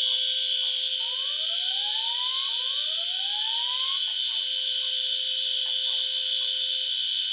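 Fire alarms sounding continuously: a steady shrill tone over a lower steady tone. Two rising sweeps come in, about one and two and a half seconds in.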